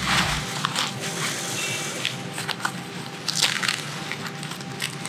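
Fabric of a Paratec Wingman emergency parachute container rustling and scraping as it is pulled and folded over the packed canopy, with irregular crinkles and short scuffs.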